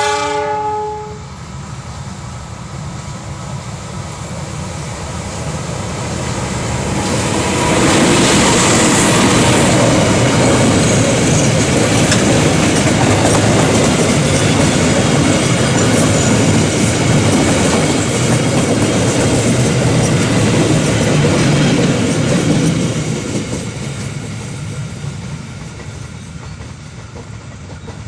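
A train's horn sounds briefly at the start, then the train passes close by, its wheels clattering on the rails, loudest for about fifteen seconds in the middle before fading away.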